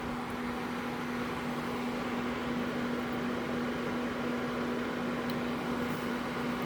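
Steady fan-like hum and hiss from electrical equipment on a repair bench, with one constant low tone and no change in pitch or level.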